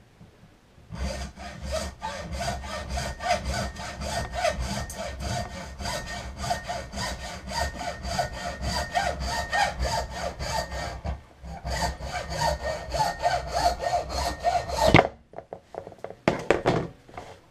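Saw cutting through a piece of antler for a knife handle in quick, even back-and-forth strokes, about three a second. There is a short break about eleven seconds in, the sawing stops near fifteen seconds, and a few sharp clicks follow.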